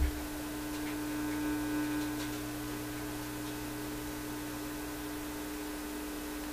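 Steady hum from a 6V6 vacuum-tube PA amplifier through its speaker, with the volume up on the phono input. The hum comes from the very high impedance input and is more noticeable than expected.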